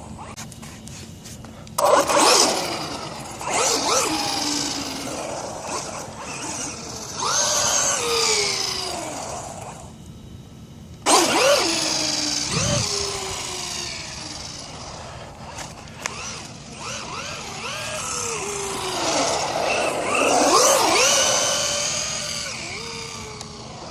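Radio-controlled car driving in repeated bursts, its motor sound rising and falling in pitch as it speeds up and slows down, about six times, with a short lull near the middle.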